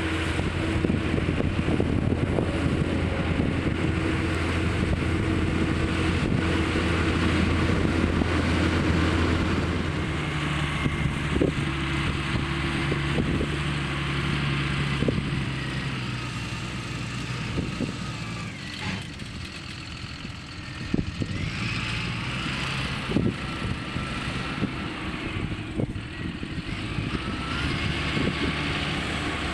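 CLAAS Arion 640 tractor's 6.8-litre six-cylinder turbodiesel engine running while ploughing, with scattered light knocks. Its note shifts about a third of the way in, drops quieter about two-thirds through, then picks up again.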